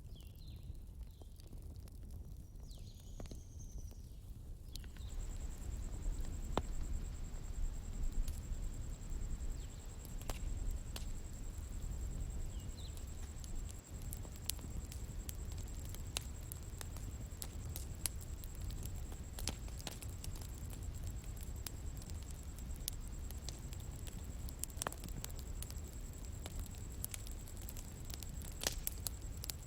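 Outdoor bonfire crackling, with scattered sharp pops and snaps over a low steady rumble. About five seconds in, a steady high-pitched trill joins, and a few short chirps come in the first seconds.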